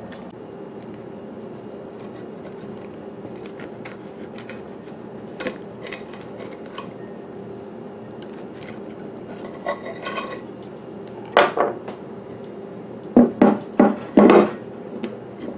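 A knife scraping and clicking around the inside of an amber glass loaf pan to free a baked zucchini bread, over a steady low hum. Near the end, the upturned glass pan knocks several times on a wooden counter as the loaf is popped out.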